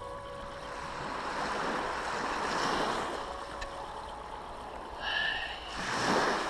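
Small waves washing in over a pebble beach, swelling about two and a half seconds in and again near the end as a wave breaks on the shingle. A brief high-pitched sound comes just before that last wave.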